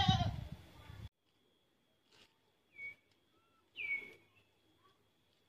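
A goat bleats through the first second, then the sound drops out suddenly. After that come faint bird calls, a few short downward-sweeping chirps with the clearest about four seconds in, over a faint steady high tone.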